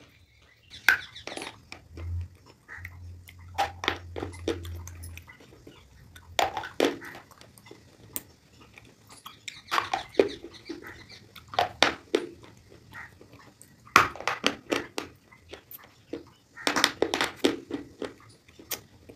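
Slate pencils being bitten and chewed up close: sharp, crisp crunches in clusters every second or two, with softer chewing between.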